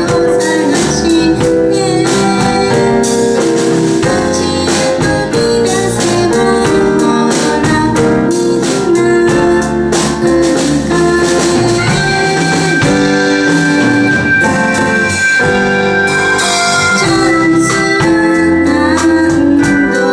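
Live band music with keyboards and drums keeping a steady beat, no clear vocal line standing out, as in an instrumental passage of the song.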